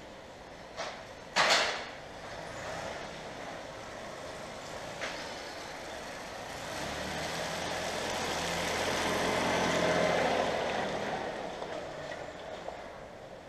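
Massey Ferguson 1523 compact diesel tractor running and drawing nearer as it scrapes slurry across the concrete yard, growing louder to a peak about ten seconds in and then easing off. A short, loud noise comes about a second and a half in.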